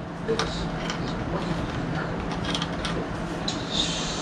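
Small metallic clicks and clinks of a steel nut and tools being handled at a car's suspension ball joint stud, while someone tries to run a nut onto its thread, with a steady low hum underneath.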